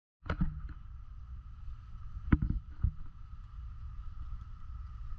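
Low, steady rumble of a vehicle's cabin while it rolls slowly, with a thin steady high hum and a few sharp knocks, the loudest two a little past halfway.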